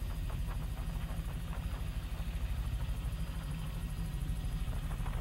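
Helicopter in flight heard from inside the cabin: a steady low drone with fast, even pulsing from the rotor.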